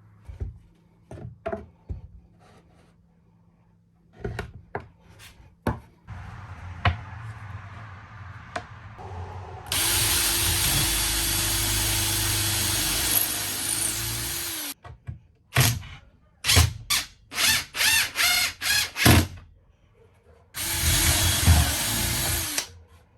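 A power drill: a few knocks and clicks of handling, then the drill runs steadily for about five seconds, gives a quick series of about eight short trigger bursts, and runs once more for about two seconds near the end.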